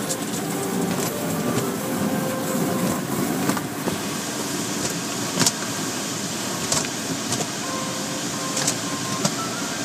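Automatic car wash heard from inside the car: hanging cloth strips sweeping and slapping across the wet windshield and body, over a steady wash of machinery and water. Several sharp slaps stand out in the second half.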